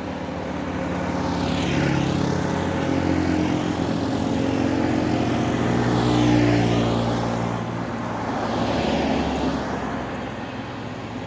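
Road vehicles driving past close by on a main road: engine and tyre noise swelling and fading as three vehicles pass, about two, six and nine seconds in.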